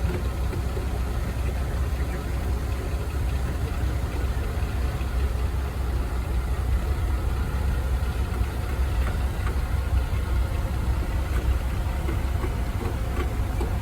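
Heavy earthmoving machine's engine running steadily at idle with a deep, even rumble.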